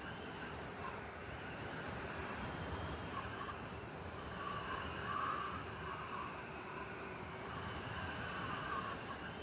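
Blizzard ambience in a city: a steady wind hiss over a low rumble of distant traffic, swelling and easing gently every second or two.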